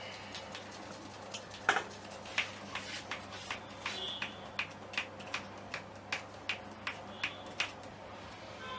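A run of sharp, evenly spaced clicks, about three a second, beginning with one louder click nearly two seconds in, over a low steady hum.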